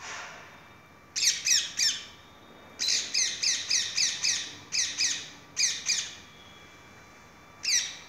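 Rose-ringed parakeets squawking: short calls, each sliding down in pitch, in quick runs of two to six with pauses between, about a dozen in all.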